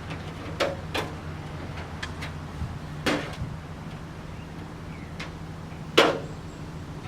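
Hammer tapping on a sheet-metal patch panel: four separate blows at uneven intervals with a few lighter ticks between them, the loudest blow about six seconds in.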